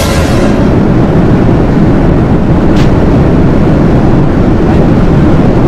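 Loud, steady airliner cabin noise: the low rumble and rush of the engines and airflow.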